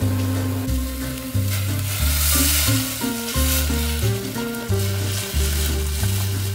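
Seaweed sizzling in a hot stainless steel pot as water is poured in, the hiss loudest about two to three and a half seconds in. Background music with a steady bass line plays underneath.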